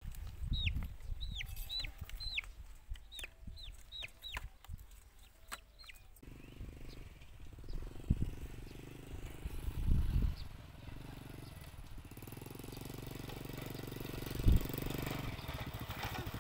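A chick peeping: about nine short chirps, each falling in pitch, over the first six seconds. After that a small motorcycle engine runs steadily as it approaches, with a few low thumps, the loudest near the end.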